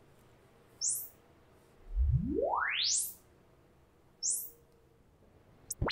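Room-correction test signals played through a hi-fi loudspeaker and picked up in the room: a short high rising chirp, then a logarithmic sine sweep climbing steadily from deep bass to the highest treble in about a second, then another short high chirp. The chirps are the acoustic timing reference from the reference speaker, and the sweep is a Room EQ Wizard measurement of the left speaker. A couple of sharp clicks come right at the end.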